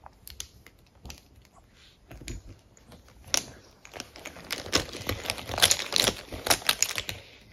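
Light clicks of makeup brush handles being set down, then from about halfway a busy run of clicks and rustling as a hand rummages among brushes in a zippered makeup pouch.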